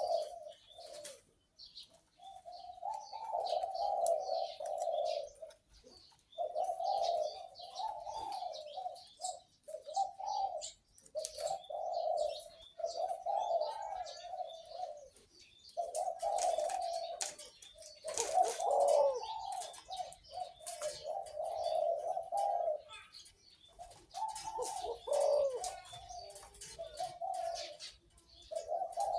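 Caged dove cooing over and over in low, deep phrases of a second or two each with short pauses between. Small birds chirp high in the background.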